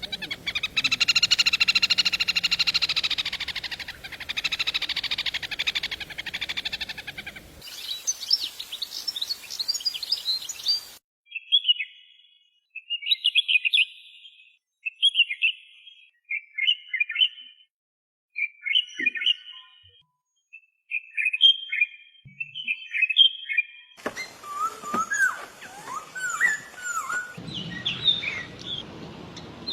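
Songbird calls and songs from several different recordings spliced one after another. It opens with a run of loud, evenly repeated arching calls, then rapid high notes. Short chirping phrases follow with silent gaps between them, and near the end comes a new recording of varied whistled notes.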